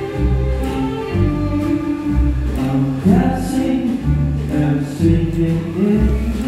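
Live ensemble music: a grand piano with bowed strings, cello among them, playing a tune over a bass note that comes round about once a second.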